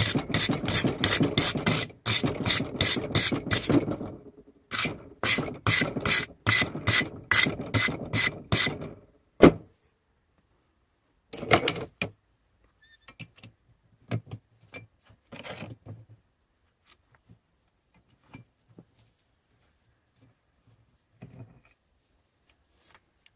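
Hammer rapidly striking a steel chisel held on a hot railroad spike, about three or four ringing blows a second, in two runs of roughly four seconds each: the nose of a forged skull being cut in. Then one sharp single strike, and a few light clinks of tools being handled.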